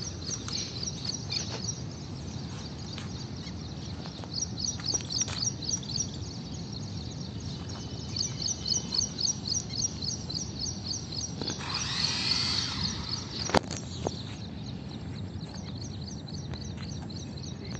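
Outdoor ambience with a steady low rumble and a bird repeatedly singing quick runs of high chirps, about five a second. About twelve seconds in comes a brief rushing noise, then a single sharp click.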